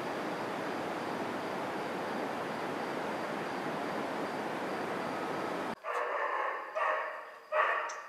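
Steady rushing noise that cuts off suddenly near the end, followed by three loud animal calls in quick succession, each lasting about half a second to a second.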